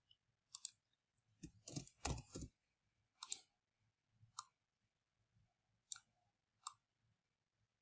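Faint computer mouse clicks and keyboard keystrokes: a quick run of keystrokes about two seconds in as a word is typed, then single clicks spaced about a second apart.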